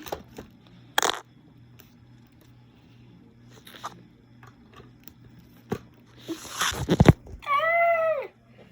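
LEGO pieces and figures being handled, with a few sharp clicks and knocks and a rustle and thump about seven seconds in. Near the end comes a single meow-like cry, rising and falling over about a second.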